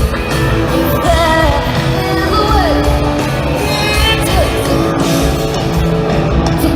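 Live band playing country-rock, with guitar, bass and drums under a woman singing lead.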